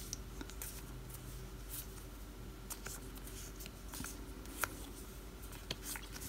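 A stack of paper stickers handled and shuffled by hand: faint rustling with scattered light clicks, one sharper click about three-quarters of the way through.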